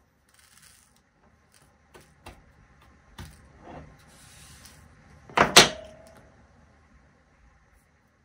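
Small plastic brush swishing loose diamond-painting drills across a wooden tabletop, with light clicks of the drills. About five and a half seconds in comes a loud double clack of plastic on the table, with a short ring after, as the brush is put down.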